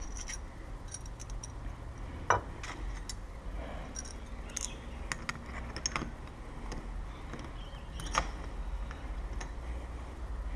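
Keys and small metal door-lock parts being handled: scattered light metallic clicks and clinks, with two sharper knocks about two seconds in and about eight seconds in.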